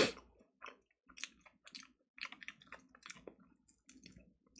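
Person chewing fried chicken close to the microphone: faint, irregular mouth clicks and soft smacks.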